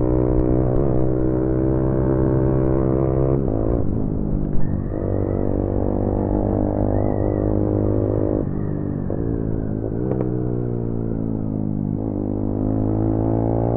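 Motorcycle engine running at road speed. Its pitch holds steady, then dips and climbs back up several times. There is one short sharp knock about four and a half seconds in.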